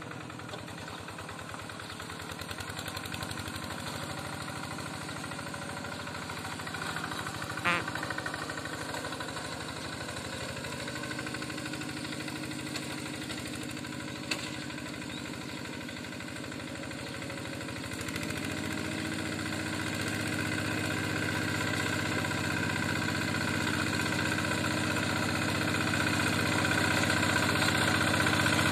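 Yanmar Bromo Pro hand tractor's single-cylinder diesel engine running steadily as it tills a flooded paddy, growing louder from about two-thirds of the way through as it comes closer. A single sharp knock rings out about eight seconds in.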